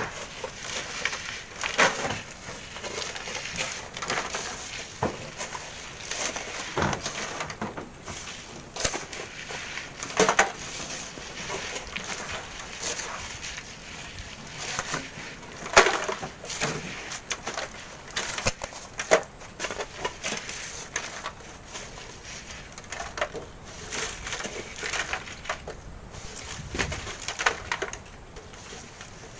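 Shovels scraping and digging into sand and gravel, with irregular knocks and clatters of stones and tools, as workers load wheelbarrows by hand.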